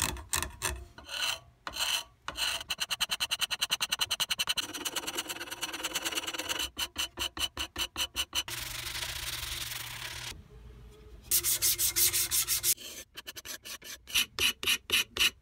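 A steel scraper blade in a wooden holder scraping the old finish off a wooden croquet mallet handle, in runs of quick short strokes with two longer drawn scrapes in the middle.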